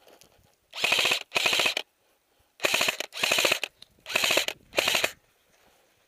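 Airsoft electric rifle firing on full auto: six short bursts of rapid shots, in three pairs about a second and a half apart.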